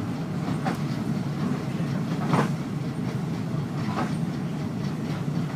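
Passenger train running on the tracks, heard from inside the carriage: a steady low rumble with three sharp clacks of the wheels over rail joints, about a second and a half apart.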